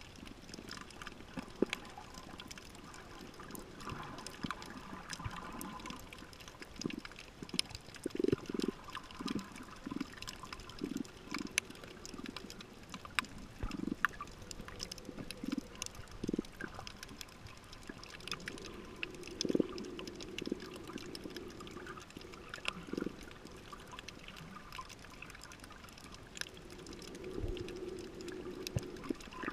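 Water heard with the microphone under water: irregular bubbling and gurgling, with many scattered sharp clicks.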